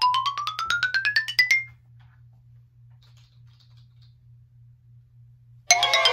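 A fast run of short electronic beeps climbing steadily in pitch, like a ringtone or alarm, stopping about a second and a half in. After a few seconds with only a faint low hum, a burst of bright, busy chiming electronic tones starts near the end.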